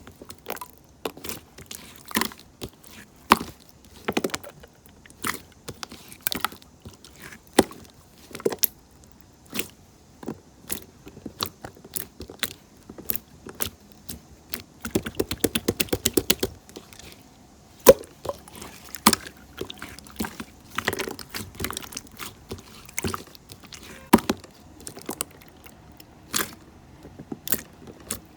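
Irregular sharp clicks and taps, roughly one or two a second, with a quicker run of rapid clicks about fifteen seconds in.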